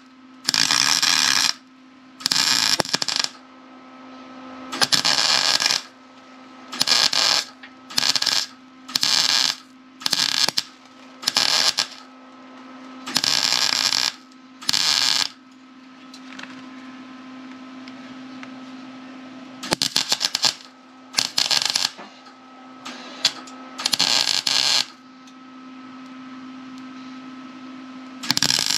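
MIG welder laying a series of short stitch welds on a car's sheet-steel inner fender: about fifteen crackling bursts of half a second to a second each, with a pause of about four seconds partway through. A steady low hum runs underneath.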